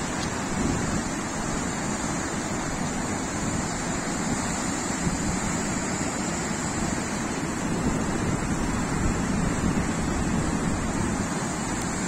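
Muddy floodwater rushing and churning in a steady torrent, scouring away the railway embankment after heavy rain.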